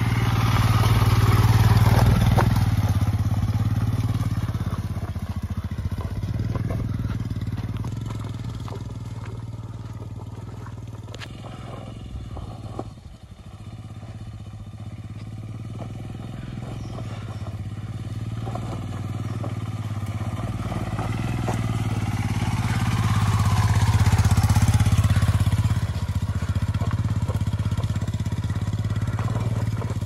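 Motorcycle engine running under load on a rough dirt track, its note swelling and easing with the throttle: loudest about two seconds in and again late on, with a brief dip about halfway.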